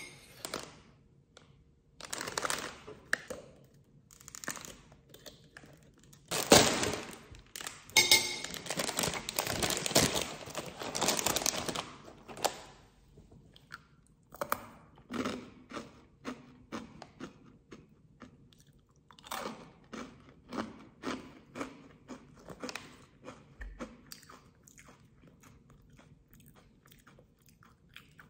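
Close-up crunching and chewing of a crispy snack: a dense stretch of loud crunching bites from about a quarter to nearly halfway in, then lighter, evenly paced chewing at about two chews a second.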